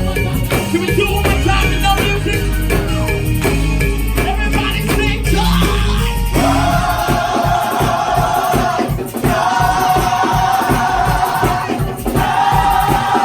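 Gospel choir singing live with a band of bass and drums. About six seconds in the bass drops out and the choir holds long sustained chords over a steady beat, breaking off briefly twice and coming back in.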